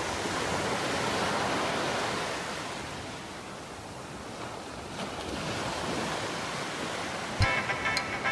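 Small waves breaking and washing up over a sandy shore, the surf swelling and easing twice. Music with a beat comes in near the end.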